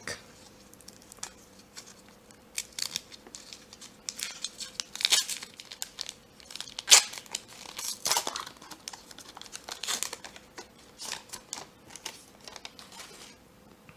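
Foil wrapper of an Upper Deck hockey card pack crinkling and tearing as it is opened by hand, in irregular crackles, the loudest about seven seconds in.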